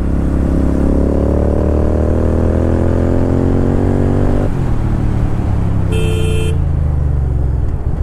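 Royal Enfield Continental GT 650's parallel-twin engine under acceleration, its pitch rising steadily for about four and a half seconds, then dropping and running on at lower revs. A short horn beep about six seconds in.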